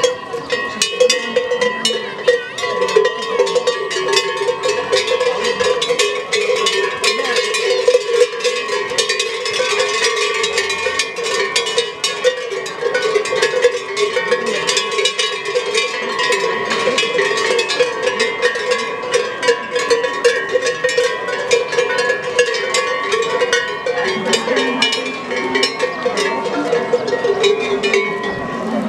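Many cowbells hung on the leather collars of a penned herd of cows clanking and ringing continuously as the cattle move about, a dense jangle of overlapping strikes.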